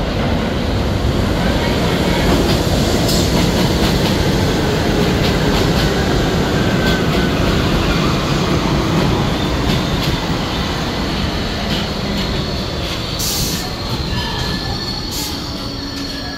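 An R62A subway train running into the station on the near track and slowing. Its wheels and running gear rumble and clatter on the rails, easing off gradually, and high brake and wheel squeals come in over the last few seconds.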